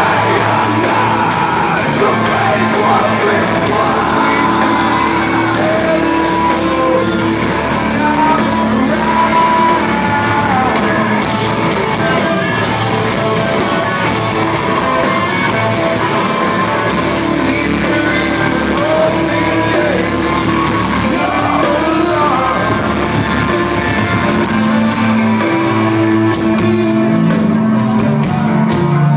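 Live rock band playing electric guitars and drums with a singing voice, echoing in a large concert hall.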